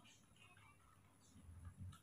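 Near silence: room tone, with a few faint low bumps in the second half.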